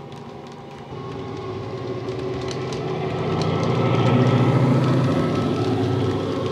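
Dapol model Class 68 locomotive's Coastal DCC sound decoder playing a deep, bass-heavy diesel engine sound through an EM2 speaker. It grows louder as the model passes close by about four seconds in, then eases off, with light clicks from the wheels on the track.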